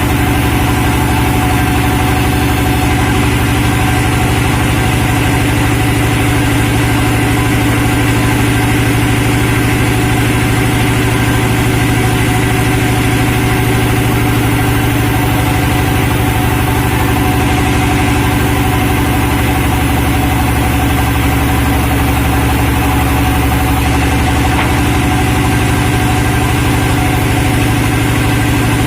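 Sawmill machinery driven by an engine, running at a steady, unchanging pitch with a constant low drone throughout.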